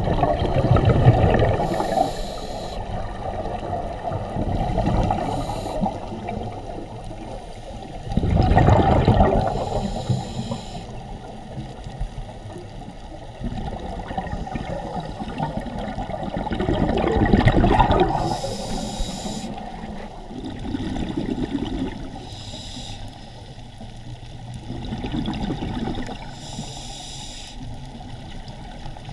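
Scuba regulator breathing heard underwater. Three loud bursts of exhaled bubbles come about eight seconds apart, with shorter, fainter hisses between them.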